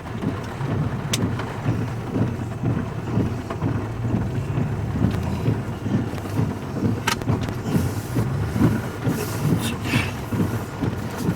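Low steady rumble of a vehicle's engine running, with uneven gusty buffeting of wind and storm noise over it. Two sharp clicks come about a second in and about seven seconds in.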